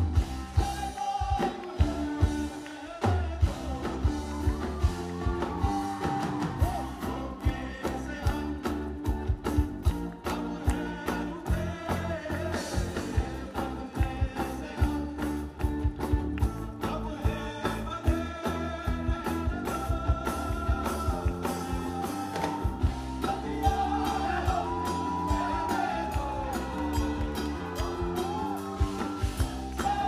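Live band playing a song with singing and a steady beat, on acoustic guitar, bass guitar, drum kit and tabla.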